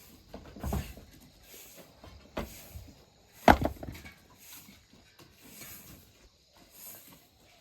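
Two sudden knocks, the louder one about three and a half seconds in, over a faint high hiss that pulses about once a second.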